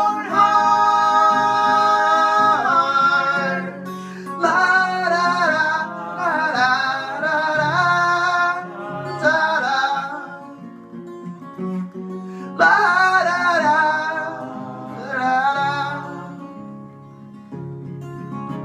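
Acoustic guitar with voices singing in harmony: long held chords at the start, then phrases that slide up and down. The voices drop out about ten seconds in and again near the end while the guitar plays on.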